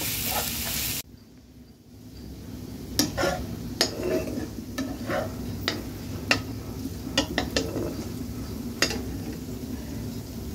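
Onions frying in oil: a loud sizzle cuts off abruptly about a second in. Then a metal spatula scrapes and clacks against the pan in irregular strokes over a softer sizzle.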